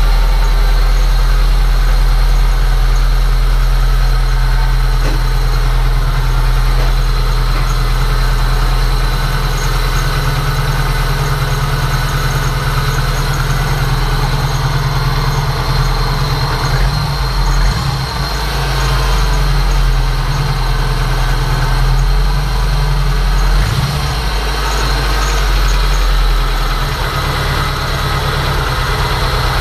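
VAZ 2109's four-cylinder petrol engine idling steadily with the hood open, running a little unevenly; its idle note shifts a few times in the second half.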